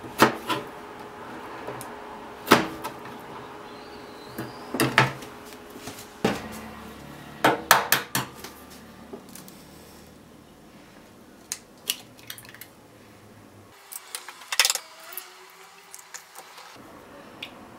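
Kitchen prep: a chef's knife knocking sharply on a plastic cutting board several times as a tomato is cut, then a ceramic bowl handled on the counter and eggs cracked against its rim and dropped in, as a quick cluster of clicks near the end.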